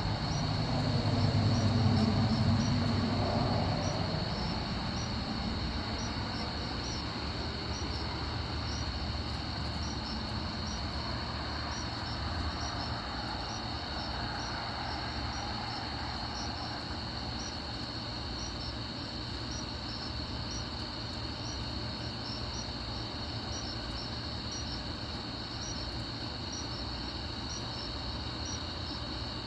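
Night insects chirping steadily, crickets or katydids in a constant high drone with regular pulsed chirps. In the first few seconds a low rumble of distant thunder swells and dies away.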